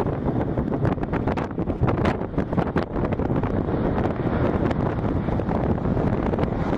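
Wind buffeting the microphone: a loud, rough, crackling rumble with rapid flutters.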